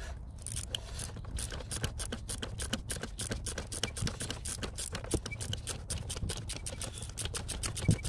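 Ratchet wrench clicking in a quick, fairly regular run as it is worked back and forth on a seized glow plug to ease its thread loose.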